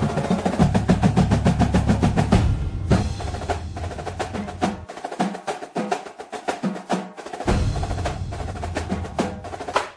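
Background music built on fast, driving percussion, with rapid drum strikes several times a second. The deep bass drops out about halfway through, leaving only the lighter strikes, and returns a couple of seconds later.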